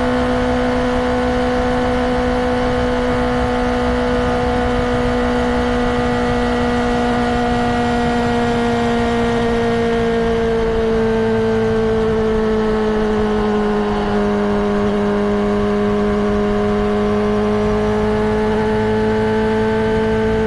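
Honda CBR600RR inline-four engine running with a steady, high pitch. The pitch sinks slightly about halfway through, then holds steady again.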